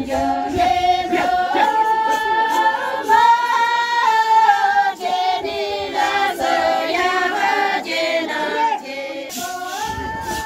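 Group of women singing a local traditional folk song together, unaccompanied, in long held notes.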